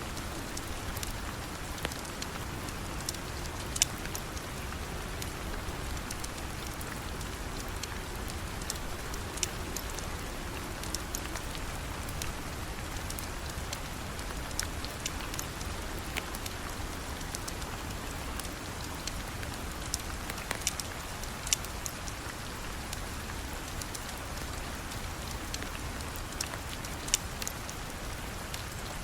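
Steady rain falling, an even hiss, with scattered sharp clicks standing out every few seconds.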